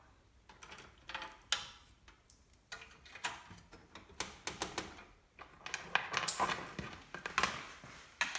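Irregular clicks, taps and rustling of computer parts being handled during assembly, coming thickest in a flurry near the end.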